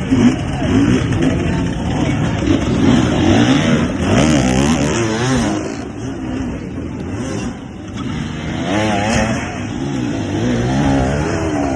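Several dirt-bike engines revving up and down over and over, their pitch rising and falling in overlapping sweeps.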